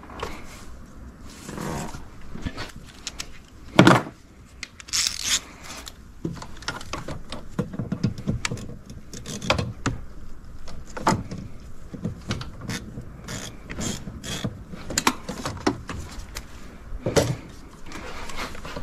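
Hand tools working loose the bolt of a car air-conditioning expansion valve: a run of irregular metallic clicks and clinks, with one sharp knock about four seconds in.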